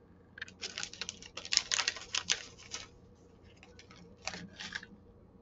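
Crinkling of a small plastic snack bag being opened and handled: a dense run of quick crackles, then a few scattered ones.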